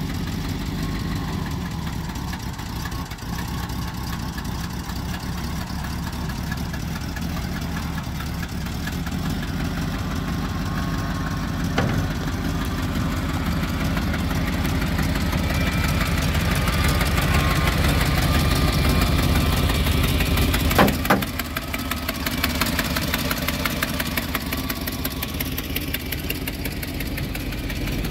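1985 Chevrolet C70 bulk feed truck's engine idling steadily, growing somewhat louder through the middle, with two short sharp knocks, the louder one near the end.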